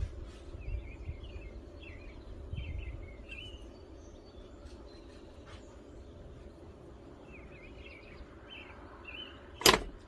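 Large Weller soldering gun humming steadily as it heats the excess solder on an EC8 connector pin, with birds chirping throughout. A single sharp knock near the end, as the hot connector is smacked to shake off the melted solder.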